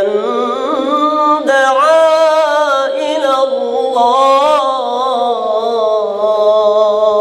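A man's melodic Arabic Quran recitation: one voice chanting long, wavering, drawn-out notes through a microphone.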